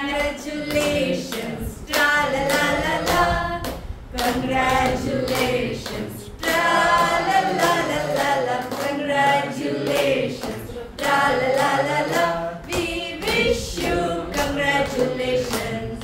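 A group of adults and children singing together without accompaniment, in several phrases with short pauses between them.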